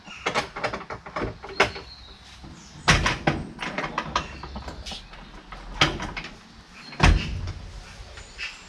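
A clatter of knocks, clicks and bangs as a chicken coop door and its fittings are handled, with heavier thumps about three seconds and about seven seconds in.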